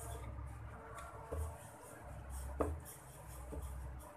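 Wooden rolling pin working puri dough on a flour-dusted wooden rolling board: light rubbing and a few knocks, the loudest about two and a half seconds in.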